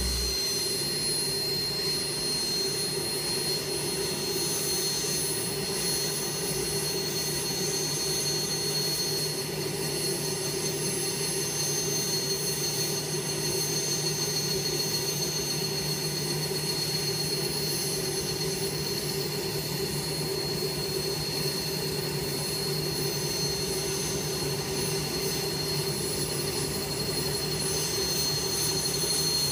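Light turbine helicopter of the Alouette II/Lama family running on the ground, its turbine giving a steady high whine over a low hum while the main rotor turns at low speed.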